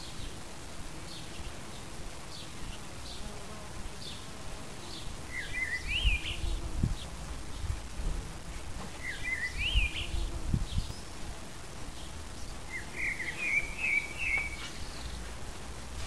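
A common blackbird singing three short warbling phrases a few seconds apart, over a faint buzz of bees flying past the microphone. In the first few seconds a thin chirp repeats about once a second.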